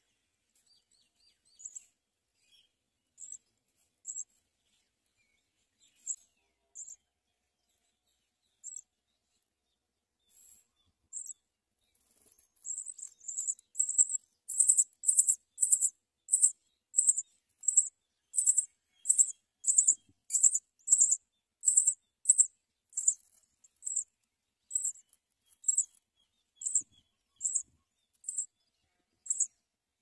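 Nestling birds begging: short, very high-pitched cheeps, scattered at first, then from about twelve seconds in a loud, regular string of about two calls a second as an adult arrives at the nest.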